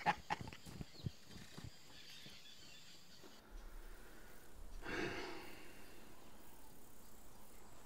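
Mostly quiet: a few faint footsteps on a dirt path in the first second or two, then low room tone with one short exhale about five seconds in.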